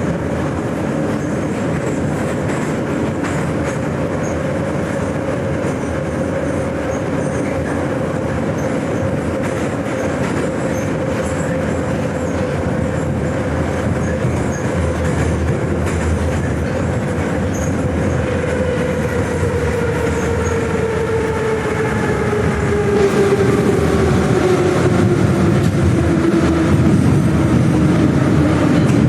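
81-717.5M "Nomernoy" metro train running through a tunnel with steady wheel and running noise. From about two-thirds of the way in, a traction-motor whine falls steadily in pitch as the train slows toward the next station.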